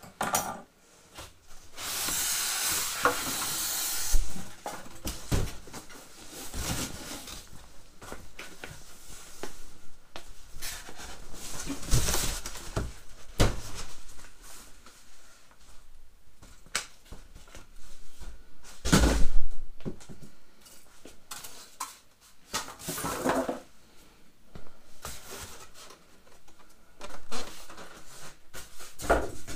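Unpacking noises: a cardboard shipping box and styrofoam packing being handled and pulled off a boxed metal tool cart. It is a mix of scraping, rustling and scattered knocks, with a two-second scrape near the start and the loudest thump about two-thirds of the way through.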